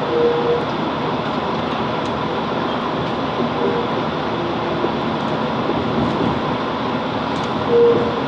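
Steady noise inside the carriage of a Class 165 diesel multiple unit, with a brief higher note shortly after the start and a slightly louder one near the end.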